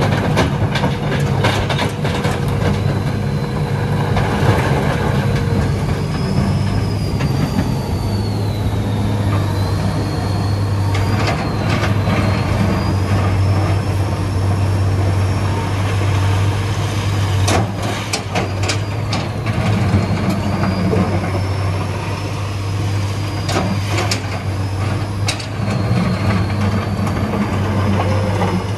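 Hitachi EX200 excavator's diesel engine running steadily under load, with a high whine that rises and falls as the machine works. Clusters of clattering knocks come several times: rocks falling and scraping in the bucket and the truck bed.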